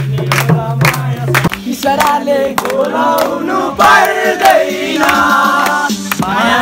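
A steady beat, about three strikes a second over a low hum, that stops about a second and a half in. Then a group of voices sing a Deusi-Bhailo festival song together.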